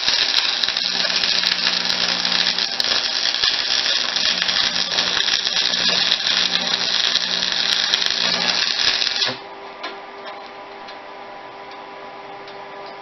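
Electric arc welding: a loud, dense crackle of the arc as a bead is laid on steel, stopping abruptly about nine seconds in, after which only a quieter steady hum remains.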